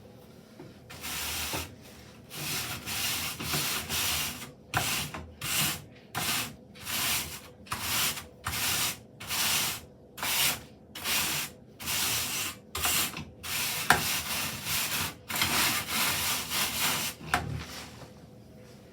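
Hand sprayer squirting a soapy cleaner of dish soap, water and rubbing alcohol onto a washable HVAC filter, in about twenty short hissing bursts roughly one a second.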